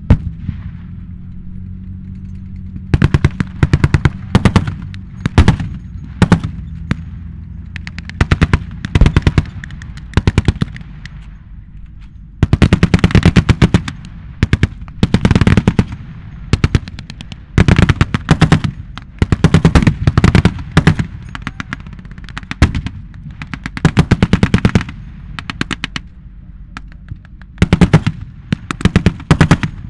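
Machine guns firing blanks in repeated bursts of rapid shots, with short pauses between bursts, over the steady low drone of tank engines. A single sharp bang comes right at the start.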